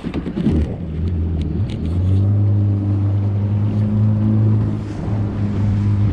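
Yamaha FX HO jet ski engine accelerating from low speed during the first second or two, then running steadily under way, with a brief dip in revs near five seconds in.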